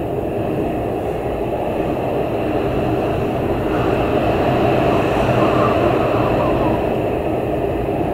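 Heavy storm wind blowing hard and steadily, with a deep rumble that swells in a gust around the middle.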